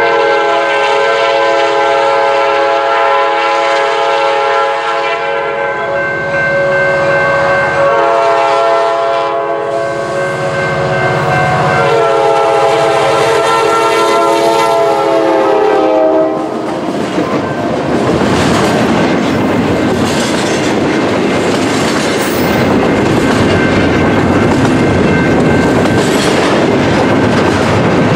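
Norfolk Southern freight train led by an EMD GP60 and SD60 sounding its air horn, several tones at once, in long blasts with short breaks as it approaches, the horn stopping about 16 seconds in. The locomotives pass and the double-stack container cars roll by with a steady clatter of wheels on rail.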